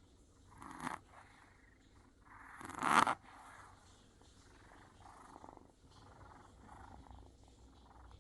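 Calico kitten purring close up, the purr coming in soft puffs with each breath, with two louder, sharper puffs about one and three seconds in.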